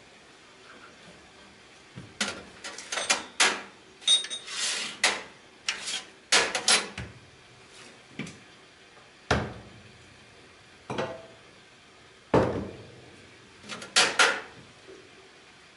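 An irregular string of short knocks, clacks and clinks of metal and porcelain from cups and parts being handled at an Astoria Rapallo lever espresso machine, with a brief ringing clink about four seconds in.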